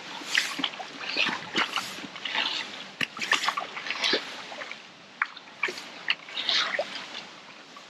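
Water splashing and dripping at the water's edge in short, irregular bursts, with light clicks and knocks of tackle between them.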